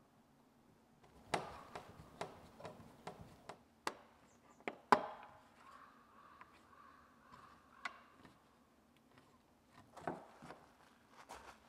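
Sharp plastic clicks and knocks of a tank level gauge being handled and set down on a plastic rainwater tank lid, a quick run of them in the first few seconds with the loudest knock about five seconds in, then a few scattered taps.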